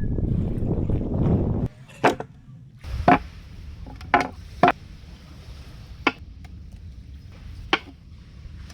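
A loud rushing noise that cuts off abruptly just under two seconds in, then about six sharp, irregularly spaced chopping strikes over a steady low rush.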